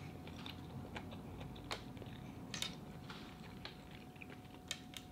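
Faint chewing with scattered small clicks and smacks of a person eating.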